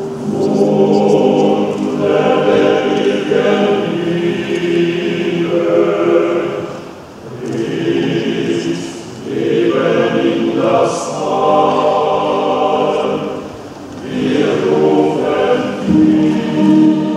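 Opera chorus of priestesses and priests singing a slow, solemn hymn with orchestral accompaniment. The phrases are held, with short breaks about seven and fourteen seconds in.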